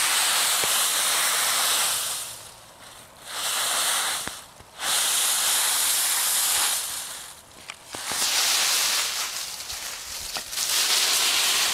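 Dry fallen leaves rustling and crunching as a small dog bounds and burrows through a leaf pile, in about five bursts of a second or two each.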